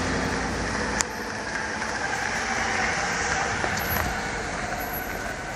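Cars' engines running on an icy street: a steady noise with a low rumble that drops about a second in, marked by a single sharp click.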